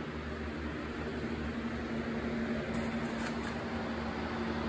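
Steady mechanical hum with a constant low tone, like a fan or other household appliance running in the room.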